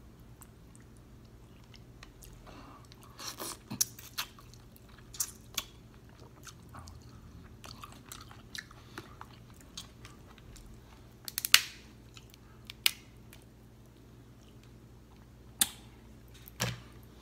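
Eating snow crab legs: the shells snap and crack as the meat is pulled out, mixed with chewing. The snaps come scattered, the loudest about eleven and a half seconds in.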